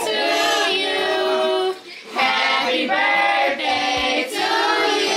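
Several voices singing together in long held notes, with a brief break about two seconds in.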